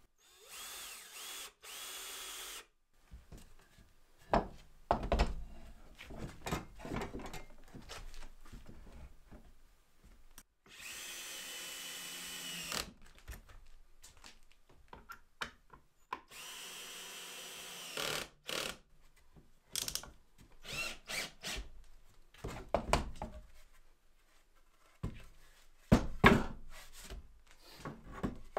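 Power drill running in three short steady runs of about two seconds each, with scattered wooden knocks and thunks between them; the loudest knocks come about five seconds in and near the end.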